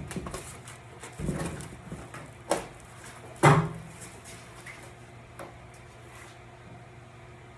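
Scattered knocks and clunks of a car's front splitter and its quick-release mounts being handled and fitted, the loudest about three and a half seconds in, over a steady low hum.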